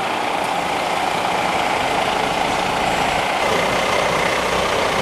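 Fire engine's diesel engine running steadily at low speed as the heavy truck creeps forward, its low rumble growing a little stronger near the end.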